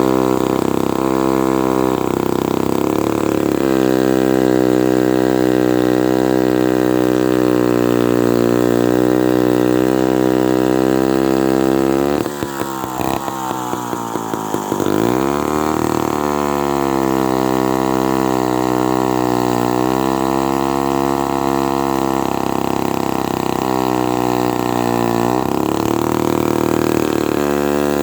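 Vintage Lombard 3-1/2D two-stroke chainsaw running under load in a cut, its engine pitch sagging and shifting as it works through dead oak. About twelve seconds in it drops to a choppy low idle, then revs back up a few seconds later and carries on cutting.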